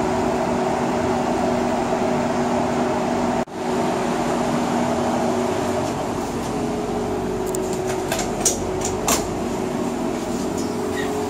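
Steady hum of a stationary passenger train's air-conditioning, with a few light clicks and taps in the second half.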